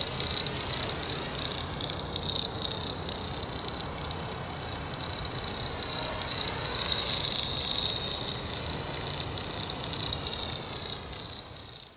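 Accurate 400 RC helicopter hovering, its drivetrain giving a steady high-pitched whine over the rotor noise. It is flying with an abnormal noise and vibration left by a crash.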